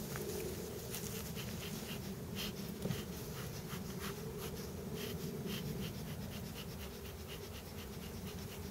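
Honeybees buzzing in a steady low hum, with many light clicks and scratches over it.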